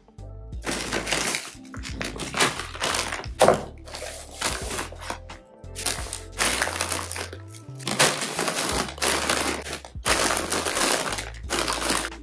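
Plastic food packaging crinkling and rustling in irregular bursts as bags are picked up and put down, over background music.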